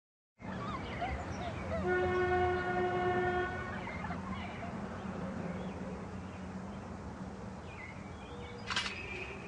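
Steady low rumble of outdoor ambience with a horn sounding once, held for about a second and a half, a couple of seconds in; a brief chirp near the end.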